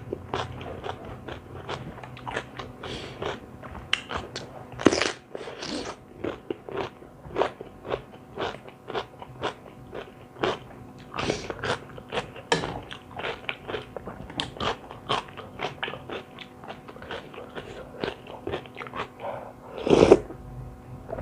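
A person chewing and crunching crisp food close to the microphone, with many sharp crunches throughout and a louder bite about five seconds in and again near the end.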